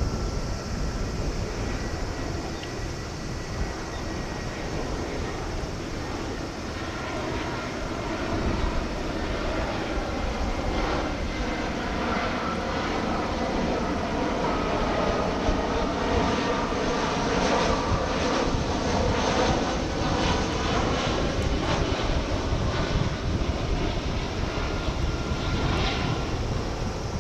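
Airbus A320-214 on landing approach: the CFM56 turbofan engines give a steady jet drone that grows louder through the middle of the pass, with whining tones that shift in pitch as the airliner goes by.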